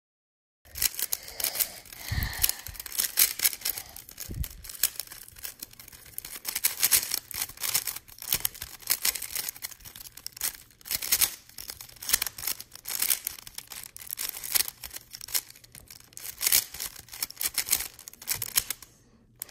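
3x3 speed cube being turned quickly by hand: a dense, irregular clicking and clacking of its plastic layers, starting about a second in. Two dull thumps stand out, about two and four and a half seconds in.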